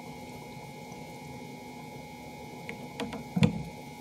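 Steady low hum of room tone, then from near the end a few sharp plastic clicks and knocks as the lid on the top of a water-filled plastic tube is handled, the loudest knock about three and a half seconds in.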